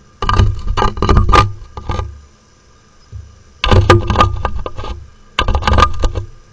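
Peregrine falcon pecking and scraping at the security camera's housing right at its microphone: three bursts of rapid sharp taps and scrapes over a low thudding, the first about two seconds long and the last two shorter.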